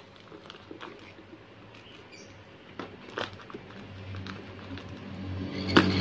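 Faint scrapes and clicks of a box cutter and tape being worked on a small wooden nest box. Over the last two seconds the baby sun conures inside start up a buzzing begging call that grows louder.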